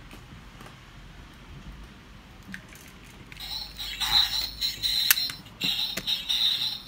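Electronic sound effect from a toy car's small built-in speaker: a high-pitched, pulsing tone that starts suddenly about three seconds in and keeps going. A few light clicks come before and among it.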